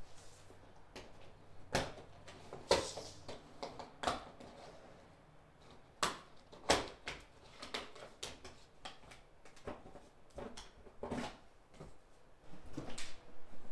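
Plastic door sill plate of a GMC Sierra being pried up with a plastic trim removal tool: a run of irregular sharp clicks and snaps as its retaining clips pop free.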